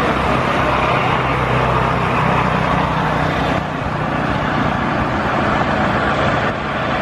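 Boeing 737-800's jet engines running on the ground, a loud steady rushing noise over a low hum, dropping slightly in level about halfway through.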